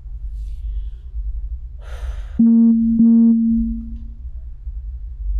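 Two loud, clear pitched tones about half a second apart, each starting sharply; the second rings on and fades out within about a second. A brief soft rustle comes just before them.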